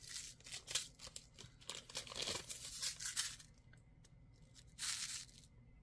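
Crinkling plastic packaging as small bead packets are handled and swapped: a run of rustles over the first three seconds or so, then another short rustle near the end.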